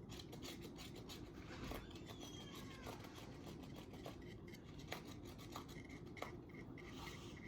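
Faint rubbing and scratching of a paintbrush on a small wooden birdhouse, with scattered small taps and clicks. In the second half, faint short high peeps repeat.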